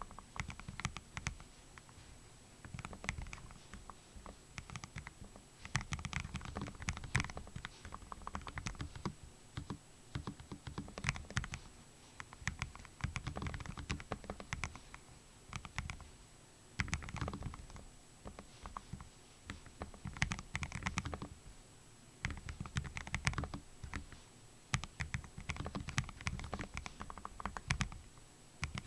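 Typing on a Lofree Flow low-profile mechanical keyboard with Kailh Full POM switches in a gasket-mounted case. Fast runs of keystroke clicks come in bursts, with brief pauses between them.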